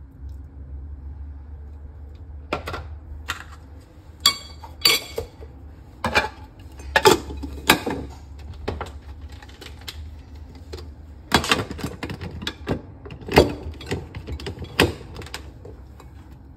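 Kitchen utensil clatter: a spoon knocking and scraping against a plastic tub and a glass chopper bowl as grated corn is spooned in, then the chopper's plastic lid is clicked into place. Irregular sharp clicks and knocks in two clusters over a steady low hum.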